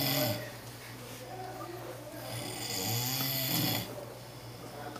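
A man snoring in a drunken sleep: a long rasping snore tails off just after the start, and another runs from about two seconds in for a second and a half.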